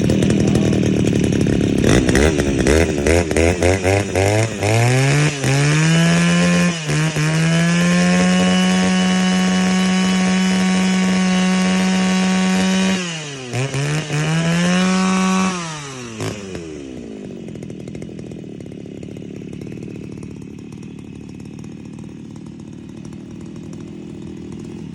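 Two-stroke brush cutter engine revving up to full throttle, held there for several seconds, briefly dropping and revving again, then settling back to a steady idle for the last several seconds.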